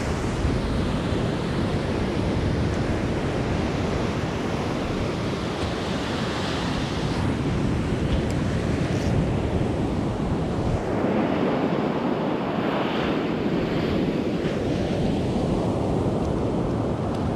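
Surf breaking on a sandy beach, a steady wash that swells a little now and then, with wind buffeting the microphone.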